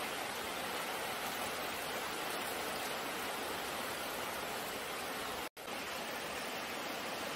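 Heavy rain falling as a steady hiss, with a short break about five and a half seconds in.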